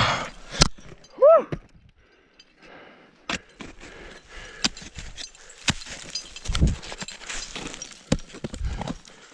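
Ice axe picks and crampon points striking and scraping snow-covered rock and turf during a winter climb: scattered sharp metal clicks and knocks, gear jangling, and two dull thumps of boots kicking into snow in the second half. About a second in, a loud short tone rises and falls.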